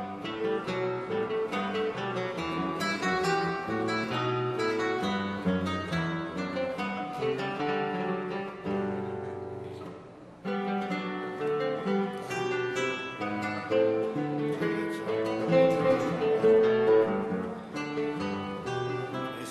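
Background music: an acoustic guitar picking a melody, dropping away briefly about halfway through and coming back sharply.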